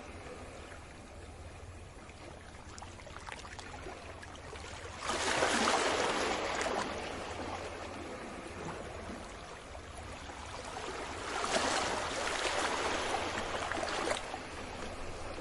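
Sea waves washing in, with one surge of water about five seconds in and another swelling around eleven seconds, over a steady low rumble.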